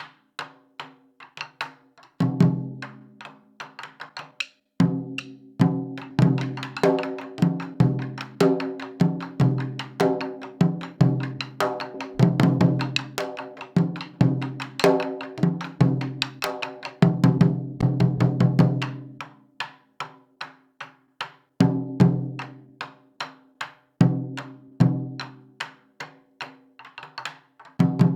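Japanese taiko drums played in an ensemble rhythm: deep, resonant drum strikes mixed with sharp, high clicking hits. The strikes come thick and fast through the middle, then thin out to spaced groups of beats near the end.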